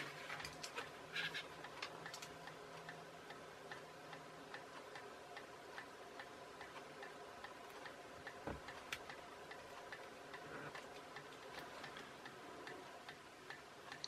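Faint steady ticking in the room, with a few light clicks and taps from a cotton bud stick and small parts being handled on the workbench, the sharpest near the start and about eight and a half seconds in.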